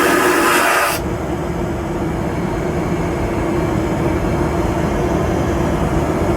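Boeing 737 vacuum toilet flushing: a loud suction rush that cuts off suddenly about a second in, leaving a steady low drone.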